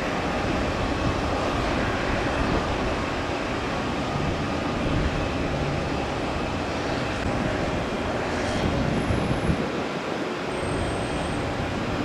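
Steady rumble of road traffic and construction machinery.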